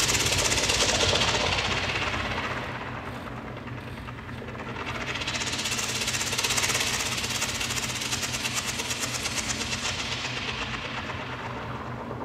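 Electronic music from a Buchla modular synthesizer: a fast-pulsing stream of noise whose brightness opens up and dies away twice, over a steady low drone.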